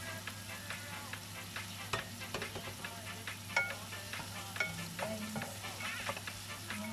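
Blanched broccoli and cauliflower sizzling in a hot pan as they are stir-fried, with a utensil clicking and scraping against the pan many times.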